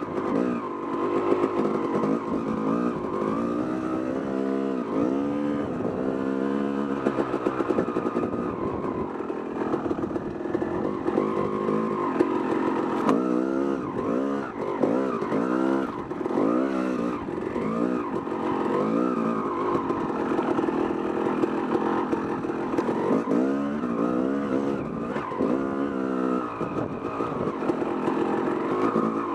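Yamaha YZ250 two-stroke dirt bike engine under way, revving up and down over and over as the throttle is worked, its pitch rising and falling every second or two.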